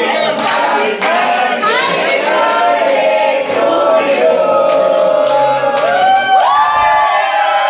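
A crowd of men and women singing together loudly, clapping along.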